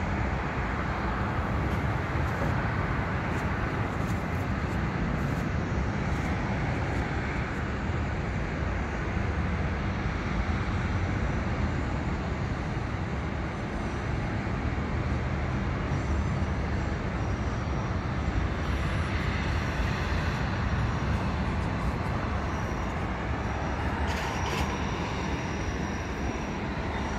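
Steady, even rumble of a distant jet airliner's engines as it climbs away after takeoff.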